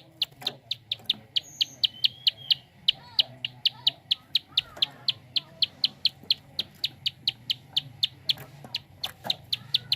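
Prenjak (prinia) giving its fast 'klik' call: a steady run of sharp, high clicks, about four to five a second, with other birds calling faintly underneath.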